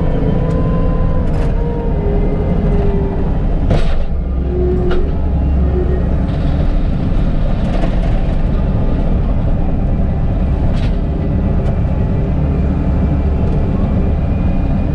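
Bobcat T650 compact track loader's diesel engine running steadily under load while working gravel, with a few sharp knocks over it.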